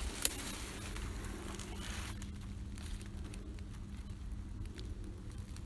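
Light rustling of leaf litter and undergrowth with a low handling rumble as a hand-held camera is carried through the woodland floor, and one sharp click just after the start.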